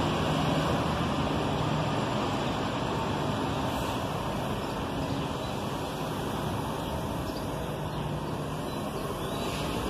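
City transit bus engine running as the bus drives off, over steady street traffic noise. Near the end the engine of a second bus grows louder as it approaches.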